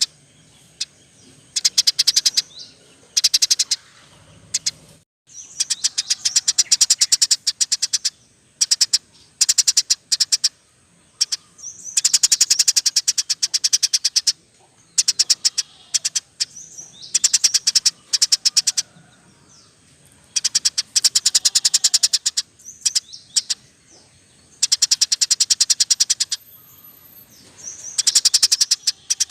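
Small cage songbirds singing rapid, high chattering trills, repeated in bursts of one to two seconds with short pauses between them.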